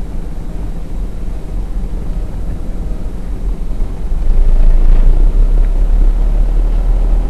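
Steady low engine and road rumble from inside a moving vehicle, getting louder about four seconds in.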